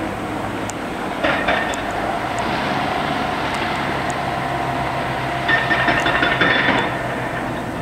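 Atlas Copco HB5800 hydraulic breaker on a Caterpillar 330DL excavator hammering rock in rapid blows: a short burst about a second in and a longer burst of about a second and a half near the end. Between the bursts the excavator's diesel engine runs steadily.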